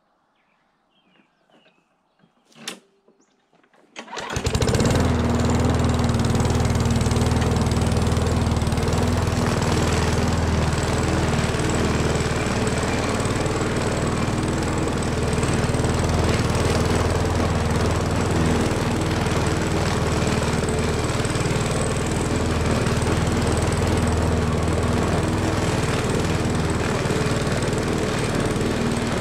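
Hitachi 35U mini excavator's diesel engine running at a steady speed, setting in abruptly about four seconds in, after a few faint small sounds.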